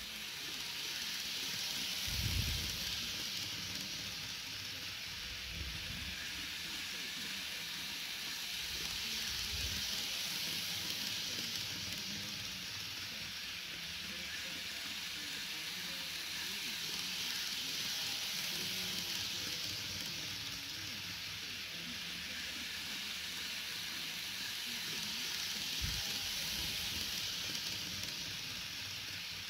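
Model 485 series 1500 train running around an oval of model track: a steady hissing whirr of its motor and wheels on the rails, swelling and fading as it circles. A dull bump sounds about two seconds in and another near the end.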